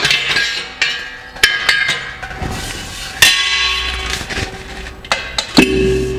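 Stainless steel beer kegs knocking and clanking as they are handled, lifted off the cleaner and set down on the floor. There are several sharp metallic knocks, each with a bright ring after it. The last knock, near the end as a keg is set down, leaves a lower, steady ring.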